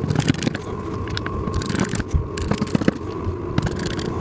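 Metal cam bolts being fitted into the holes of a wooden table panel: an irregular run of small clicks, taps and scrapes.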